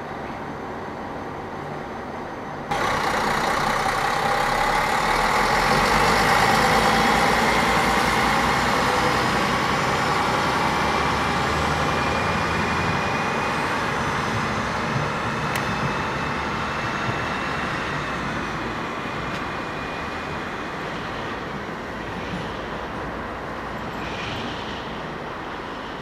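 Regio-Shuttle RS1 diesel railcar pulling away, its engine and drive running with a steady whine. The sound comes in abruptly about three seconds in, is loudest a few seconds later, then slowly fades as the railcar draws away. Before that comes a quieter stretch of another railcar approaching.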